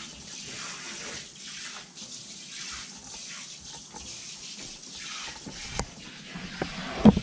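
Kitchen faucet running, water splashing as pieces of fish are rinsed in the sink. Near the end the water gives way to a few sharp knocks, the loudest just before the end.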